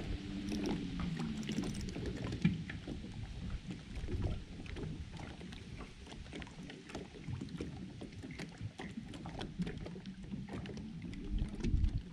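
Small waves lapping and slapping against a fishing boat's hull in many small irregular splashes, with a low steady hum in the first second or so and again near the end.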